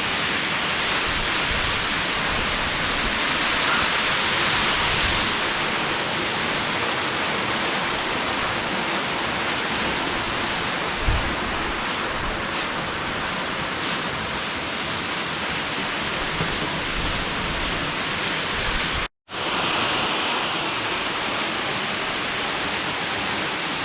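Waterfall with the steady, even rush of falling water. The sound cuts out for an instant about three-quarters of the way through.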